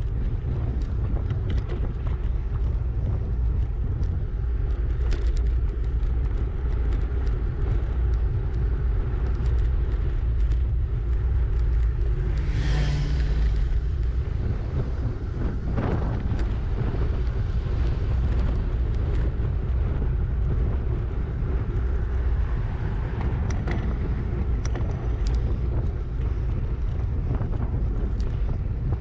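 Wind buffeting the microphone of a bicycle-mounted camera while riding, a steady low rumble, with a brief louder rush near the middle.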